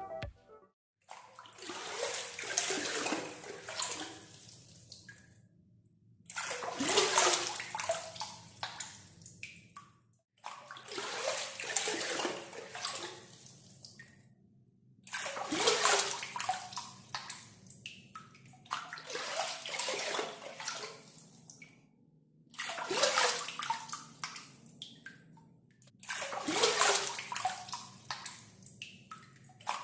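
Water being scooped with a gayung (water dipper) and poured out, seven times over, each pour a splash of three to four seconds with short pauses between.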